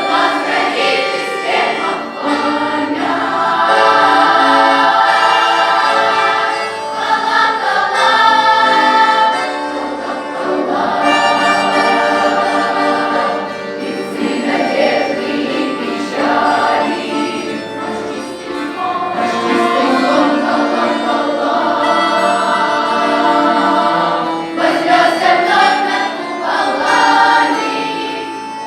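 Youth folk-song choir singing in long held phrases.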